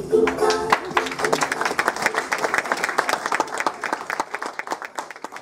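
Audience applauding, dense clapping that starts suddenly and thins out near the end, with a brief held pitched tone over about the first second.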